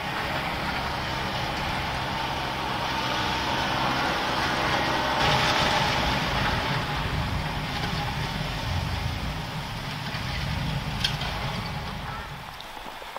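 Motor vehicle engine running with a low steady hum over a broad street hiss, louder around the middle and dropping near the end.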